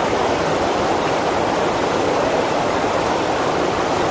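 Steady rush of water pouring over a FlowRider sheet-wave machine.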